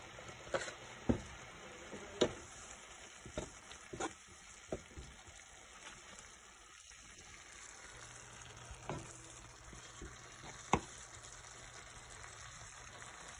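Spinach and tomatoes sautéing in a nonstick frying pan with a steady sizzle, and a spatula knocking and scraping against the pan at irregular moments as the greens are stirred.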